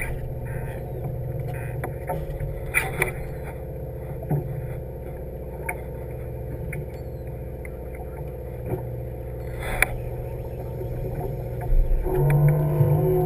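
A fishing boat's engine droning steadily, with scattered light clicks and knocks from gear on deck. Near the end a louder, higher droning tone comes in.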